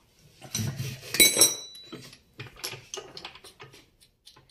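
Steel parts of a bushing extractor and hand tools clinking and clattering as they are taken apart and handled at a bench vise, with a cluster of sharp metal knocks and one ringing clink about a second in, then lighter clicks.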